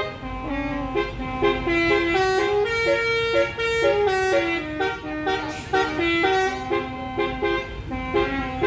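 Basuri musical vehicle horn playing a melody, note after note stepping quickly between pitches, with a low rumble underneath.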